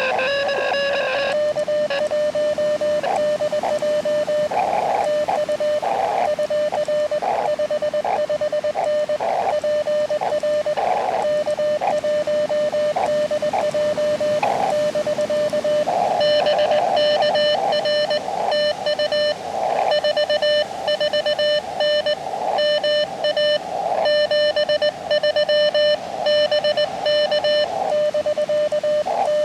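Morse code (CW) from an Elecraft KX2 transceiver: a tone of about 600 Hz keyed in dots and dashes over band hiss, with a second, brighter keyed tone sending in rhythm near the start and again from about halfway through.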